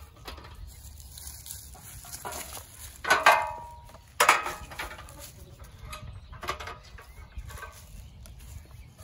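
Aluminium stepladder being picked up and moved: two loud metallic clanks about three and four seconds in, the first with a short ring, then a few lighter knocks.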